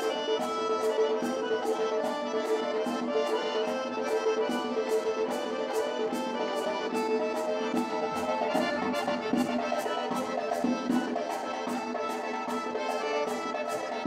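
Traditional Circassian dance music led by accordion, with a steady sharp beat of about three strokes a second.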